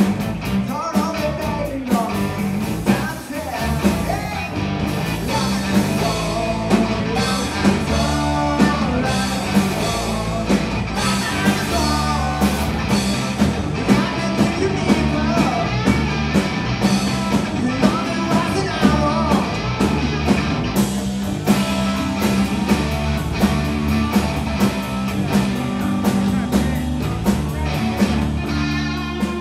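A blues-rock band playing live: electric guitar, bass and drum kit with a steady beat, and singing.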